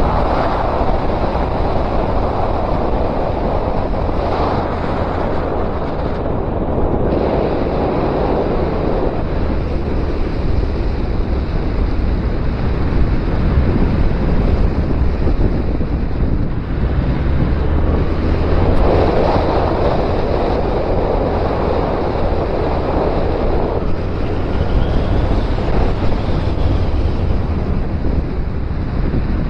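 Heavy wind rushing over the microphone of a camera on a moving Suzuki Bandit 1250 motorcycle, swelling and easing every few seconds, with a steady low rumble beneath.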